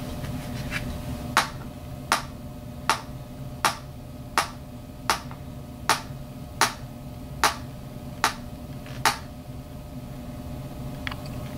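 About a dozen sharp clicks, evenly spaced about three-quarters of a second apart, over a steady low hum; the clicks stop about nine seconds in.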